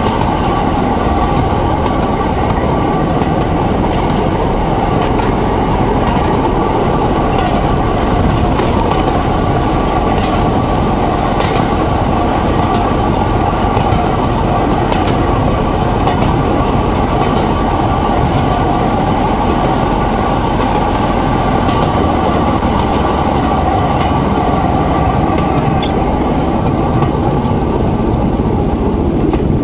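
Motor draisine running along narrow-gauge track: a steady, even drone of its small engine and wheels on the rails, with occasional clicks.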